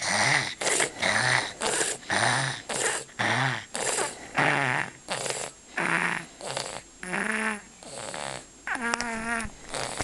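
A young child's congested snoring breathing during a cold: quick noisy breaths in and out, about two a second, many with a low snoring buzz. About nine seconds in one longer breath carries a steady, higher tone.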